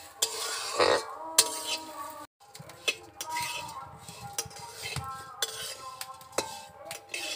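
A metal spatula scrapes and clinks against a metal kadai, stroke after stroke, as vermicelli is stirred and toasted in oil.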